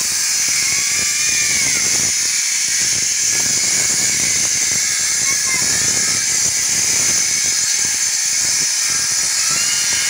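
Angle grinder cutting into a masonry wall: a loud, steady, high-pitched grinding hiss that keeps on without a break.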